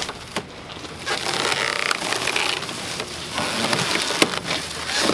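Plastic stretch wrap being ripped and pulled off a wooden shipping crate, crinkling and crackling. A couple of sharp clicks come at the start, and it gets louder and denser about a second in.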